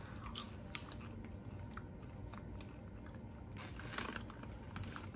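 A person chewing dill pickle popcorn, with faint, irregular crunches that come a little thicker about four seconds in.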